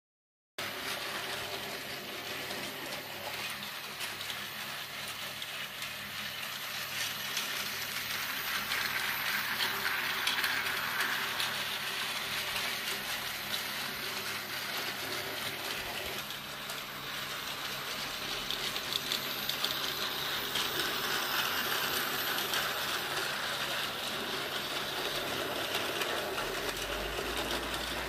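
Battery-powered Tomy toy trains running on blue plastic track: the small gear motors whir steadily with fast clicking and rattling, starting suddenly about half a second in.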